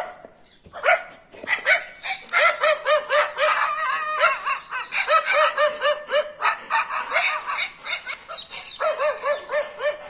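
A dog's barking played back through a mobile phone's speaker: rapid, repeated high yapping barks, several a second, with a few short breaks.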